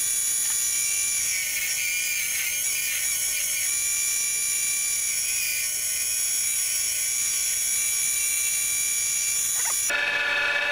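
Benchtop wood lathe running with a steady high motor whine while a hand-held gouge shaves the spinning cedar handle blank. The sound changes abruptly near the end.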